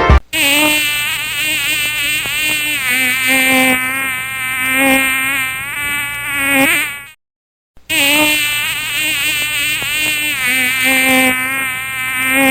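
A loud insect-like buzz with a wavering pitch runs about seven seconds, cuts off suddenly for half a second, then starts again.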